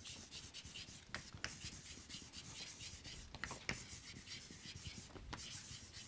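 Chalk writing in cursive on a chalkboard: faint scratching strokes, with a few sharp ticks where the chalk strikes the board.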